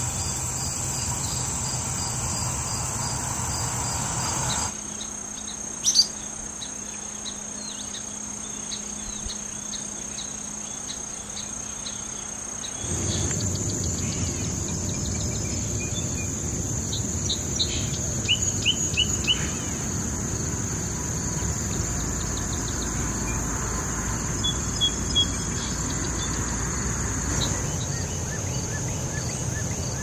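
A steady high-pitched insect chorus of crickets, with short bird chirps over it: one loud chirp about six seconds in, a quick run of chirps around eighteen seconds, and a few more near twenty-five seconds.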